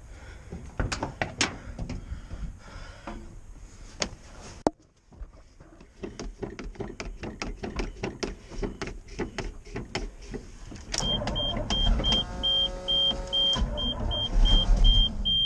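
1988 GMC 6000 truck engine being cranked on the starter, with fast, even beats from about six seconds in that get louder about eleven seconds in; the engine is hard to start and does not catch. A repeating high beep sounds through the louder part, and a few knocks and clicks come in the first seconds.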